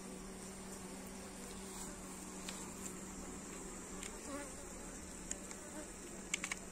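Honeybee colony buzzing around an opened hive, a steady hum. A few light clicks near the end.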